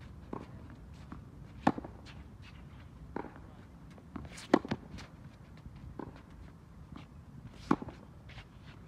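Tennis racket striking the ball in a baseline rally: three loud, sharp hits about three seconds apart, with quieter hits and ball bounces between them. There are light shoe scuffs on the hard court.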